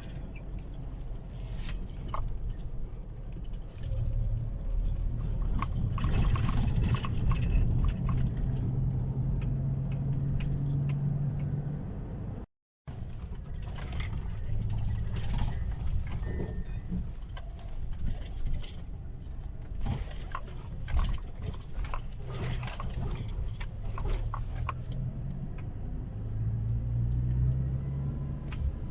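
Motor vehicle engine running, its pitch rising and falling with speed, over a constant jingle and rattle of loose metal.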